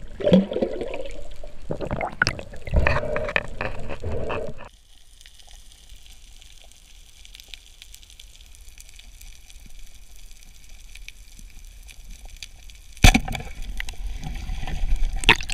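Underwater sound through a camera housing. At first there is bubbling and clattering as the speargun and line are handled, then it drops suddenly to a quiet hiss. Near the end a single sharp crack comes as a band-powered speargun is fired, followed by rushing water noise.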